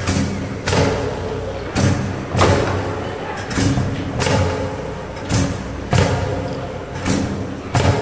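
Heavy rhythmic thuds, coming two at a time at an even pace of about one pair every 1.8 seconds, each with a short ringing tail, over a steady low hum.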